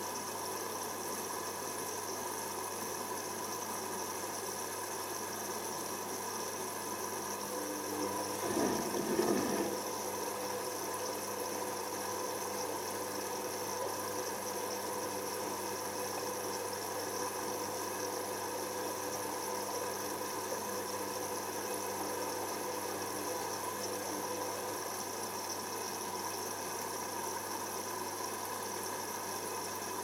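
Hoover WDYNS654D washer dryer in its first rinse: about eight seconds in the drum motor starts with a brief louder rush of the wet load, then turns the drum with a steady motor hum until it stops near the end. A constant low hum runs underneath.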